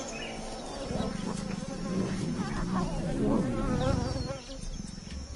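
Flies buzzing close by, a steady drone with passing buzzes that waver up and down in pitch, loudest between about two and four seconds in.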